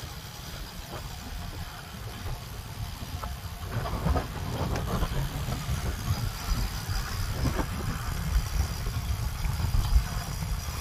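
Wind buffeting the microphone while riding a bicycle: a low, gusty noise that gets louder about four seconds in.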